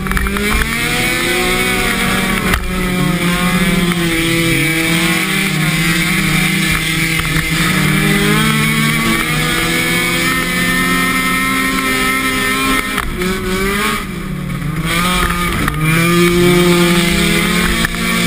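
Car engine heard from inside the cabin, its revs rising and falling over and over with the throttle, with two quick drops in revs late on.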